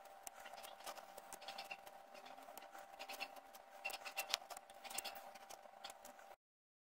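Saw chain being pulled by hand around the chainsaw bar, its links and cutters giving faint, irregular small metallic clicks and ticks over a steady faint hum. The sound cuts off abruptly near the end.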